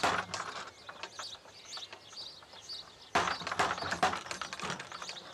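Knuckles rapping on a wooden door, a few knocks at the start and another run of knocks about three seconds in, with birds chirping.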